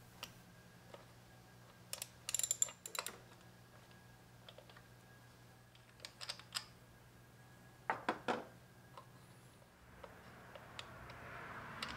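Small socket ratchet clicking in three short runs as plastic posts are unscrewed, with pauses between.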